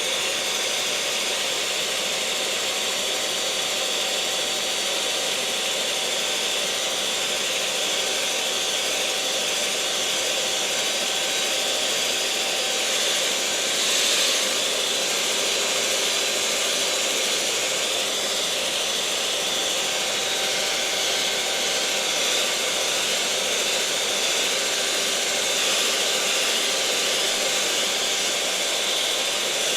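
Electric mixer's motor running at a steady speed: a continuous hum with a faint steady whine over a broad hiss, swelling slightly about fourteen seconds in.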